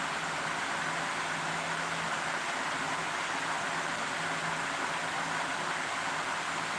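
Steady, even hiss of kitchen background noise, with a faint low hum that comes and goes.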